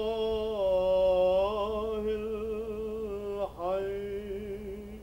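A single voice chanting in long held notes, dipping and rising in pitch about a second in, with a short break for breath near three and a half seconds. This is the liturgical chant sung just before the Gospel reading.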